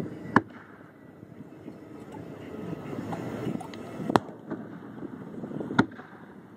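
Aerial fireworks shells bursting in sharp bangs: one just after the start, one about four seconds in and one near the end, with a few fainter pops between, over low steady background noise.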